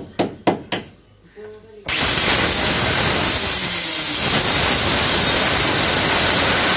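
A few quick sharp knocks, then from about two seconds in a handheld electric cutter cutting through plywood, a loud steady hiss.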